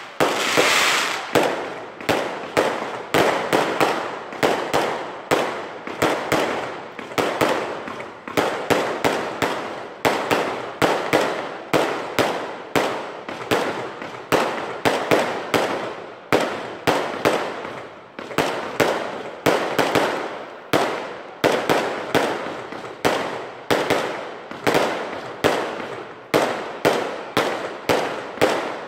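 Aerial fireworks going off in a continuous barrage, two or three sharp bangs a second, each followed by a short echo.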